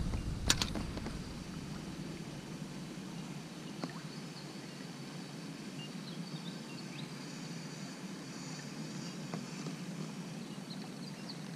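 Quiet open-air ambience from a canoe on a river: a steady soft hiss of water and air, with one sharp click or knock about half a second in and faint high chirps here and there.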